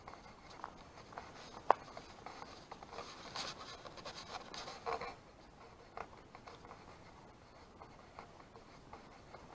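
Footsteps on a paved path, faint ticks about two a second, with a louder scratchy stretch between about three and five seconds in.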